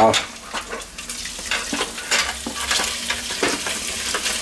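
Chunks of smoked bratwurst sizzling and crackling as they drop into hot clarified butter in an enamelled cast-iron pot. The sizzle grows louder as more pieces land.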